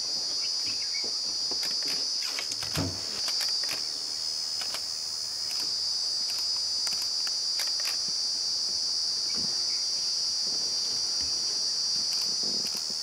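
Steady, high-pitched insect chorus that drones without a break, with scattered faint clicks over it.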